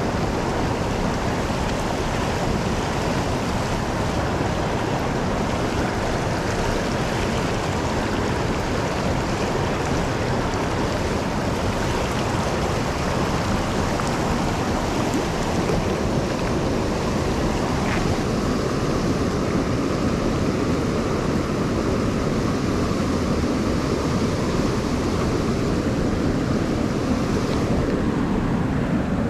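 Rushing water of a fast mountain stream: a steady hiss of flowing water.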